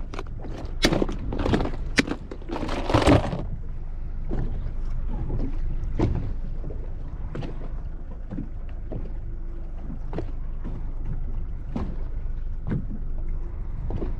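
Sharp clicks and knocks of a plastic tackle box being handled and snapped shut, densest about three seconds in. Then a steady low rumble of wind on the microphone and water against a boat hull, with faint clicks from handling fishing line and tackle.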